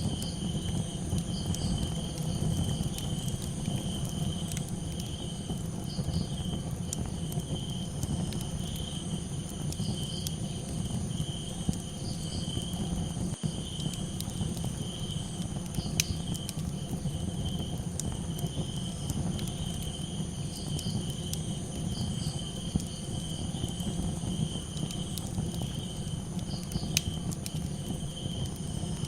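Crickets chirping in a steady, high, pulsing chorus over a crackling campfire, with sharp pops now and then and a low steady rumble beneath.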